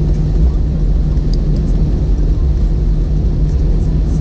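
Steady cabin noise inside an Airbus A321 taxiing after landing: the engines running at idle with a constant low rumble and hum.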